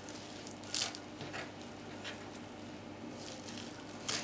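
Serrated kitchen knife chopping fresh dill and parsley on a wooden cutting board: a few separate soft cuts, the clearest about a second in, over a faint steady hum.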